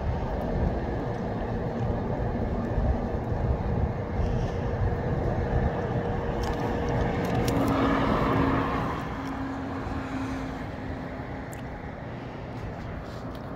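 Wind gusting on the microphone in light rain, with a vehicle passing; it swells to its loudest about eight seconds in and then fades.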